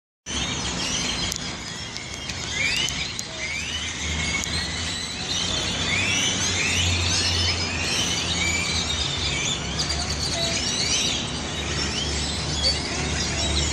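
A flock of great-tailed grackles calling loudly together in trees: a dense chorus of many overlapping short rising whistles and squeaks, over a low steady hum.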